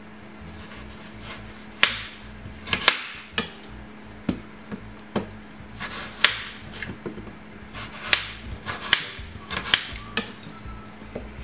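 A knife cutting up a red apple on a chopping board: irregular sharp knocks of the blade hitting the board, about a dozen, some close together.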